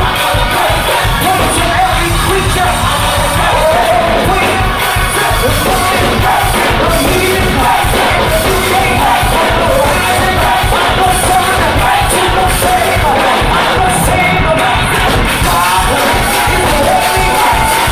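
Gospel choir singing loudly over a full band with a steady beat.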